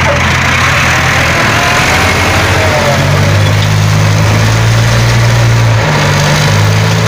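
Diesel engine of a front-loader farm tractor running close by, its pitch shifting a few times as the throttle changes while the loader works.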